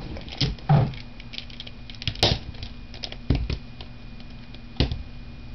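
Scattered clicks and knocks of a plastic puzzle cube being handled and set down on a plastic timer mat, a few taps with a dull thump just under a second in and a sharp click about two seconds in.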